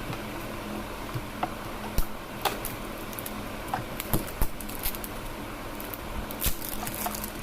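Packaging being opened and handled by hand: scattered sharp clicks, taps and crinkles at irregular intervals over a low steady background.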